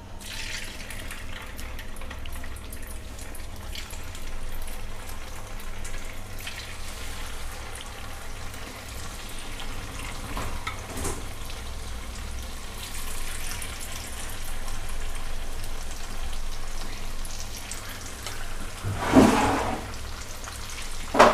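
Batter-coated cauliflower pieces deep-frying in hot oil in a pan: a steady bubbling sizzle as more pieces are slipped into the oil. A brief louder noise stands out near the end.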